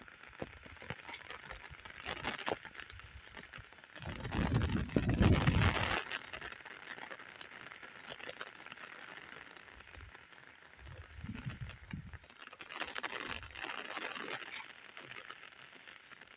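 Wading through shallow floodwater: water splashing and sloshing around the legs, loudest about four to six seconds in and again around eleven and thirteen seconds, over a steady hiss.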